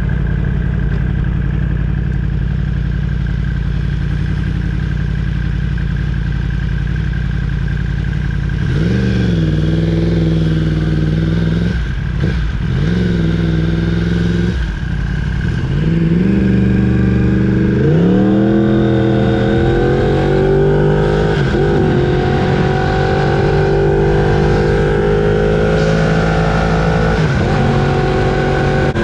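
Yamaha R1's crossplane inline-four engine running at a steady note, then accelerating hard: the pitch climbs and falls back briefly at several upshifts, then rises steadily for a long pull before easing off near the end.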